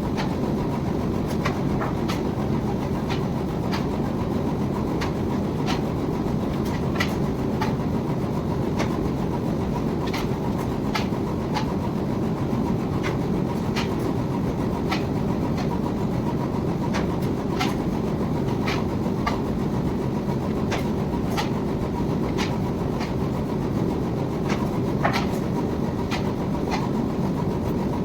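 Wire-drawing machinery running steadily with a low, even rumble, and sharp metallic clicks about once or twice a second.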